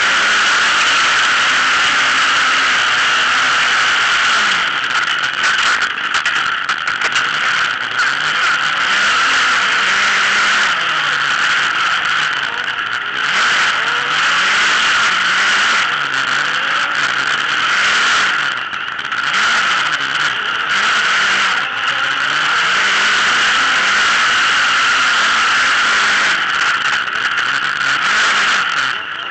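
Autocross buggy's engine racing on a dirt track, its note rising and falling through the gears under a heavy, steady rush of wind on the roof-mounted camera. The engine eases off briefly a few times in the middle before pulling again.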